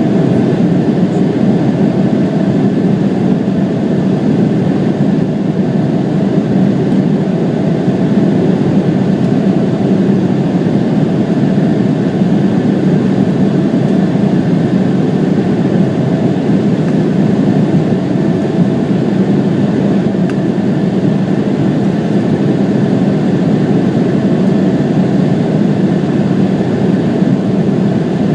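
Embraer 170's General Electric CF34-8E turbofan engines running steadily after takeoff, a loud, even drone with a low hum and faint steady whine tones above it.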